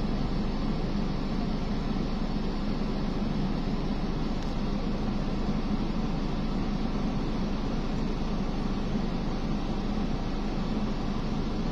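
A steady low hum with an even hiss over it, unchanging throughout: street background noise.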